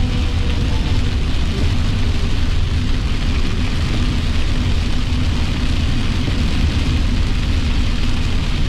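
Steady road and engine noise inside a moving car's cabin, with tyres running on a wet road in the rain.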